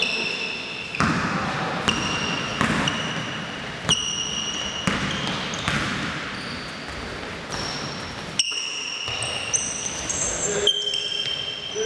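Basketball shoes squeaking on a hardwood gym floor: many short, high squeaks, with several thuds of a basketball bouncing on the court.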